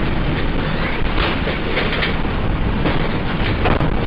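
Loud, steady noise with frequent clattering and rattling, the raw sound track of camera footage taken during the magnitude 7.1 earthquake's shaking, heard through a small, low-quality camera microphone.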